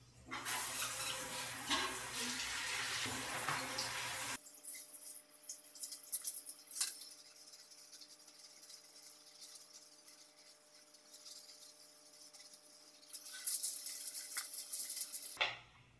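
Shower running, water spraying in a tiled shower stall behind a glass door. The spray drops abruptly to a faint hiss with a few light knocks about four seconds in, and comes back loud near the end before cutting off.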